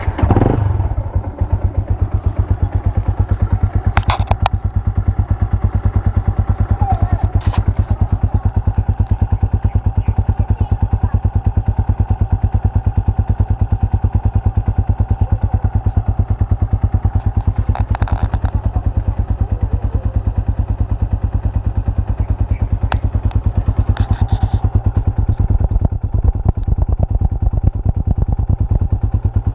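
Yamaha Sniper 150's single-cylinder four-stroke engine starting and then idling steadily through a newly fitted aftermarket power pipe exhaust, a fast, even exhaust putter. A few faint clicks sound over it.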